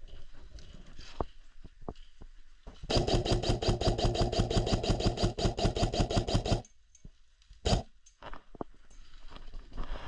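Airsoft gun firing one long full-auto burst of rapid, evenly spaced shots lasting about three and a half seconds, followed by a single sharp snap.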